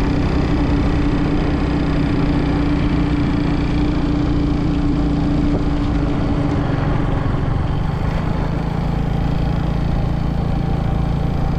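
A vehicle engine running steadily on the move, under a dense rush of road and wind noise; a steady hum in it fades out about seven seconds in.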